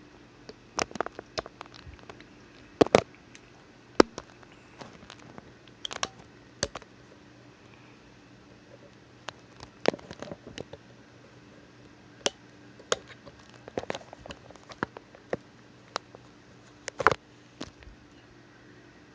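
Victorinox Cyber Tool Lite Swiss Army knife being handled as its tools are pried out and click into place against their springs: scattered sharp metallic clicks and small handling knocks, the loudest about three, four and seventeen seconds in.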